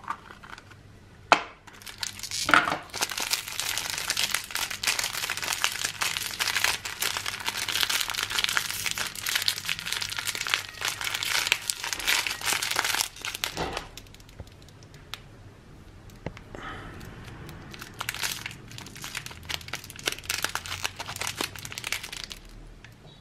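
Wrapper of a surprise egg crinkling and tearing as it is unwrapped by hand, in two long bouts with a quieter pause between them.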